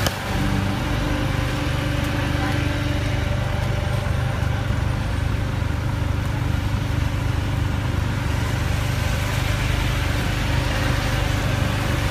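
An engine idling steadily, with a brief sharp click right at the start.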